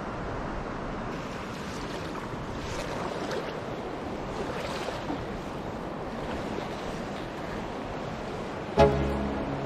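Steady rush of river water. Near the end, music comes in abruptly with a loud sustained note.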